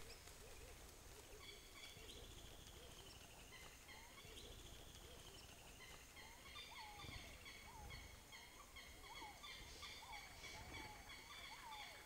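Faint bird calls: repeated high whistled notes, joined in the second half by frequent short rising-and-falling whistles.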